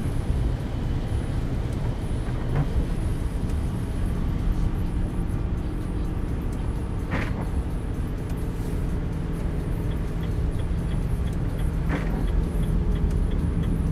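Cab interior of a loaded tractor-trailer on the move: the truck's diesel engine and road noise make a steady low rumble. Three faint brief sounds come about five seconds apart.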